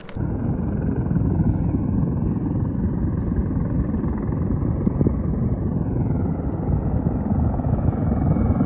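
Wind buffeting the camera microphone: a steady low rumble with no speech, starting and stopping abruptly.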